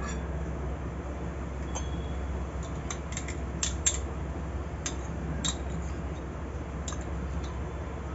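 Metal spoon clinking and tapping against glass, a small glass and a glass mixing bowl, a dozen or so sharp light clicks as curd is scooped into flour, most of them between about three and four seconds in. A steady low hum sits underneath.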